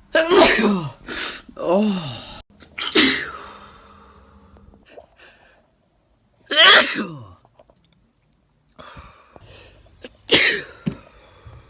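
A person sneezing in a fit, each sneeze a loud cry that falls in pitch. Three sneezes come close together at the start, then two more follow a few seconds apart.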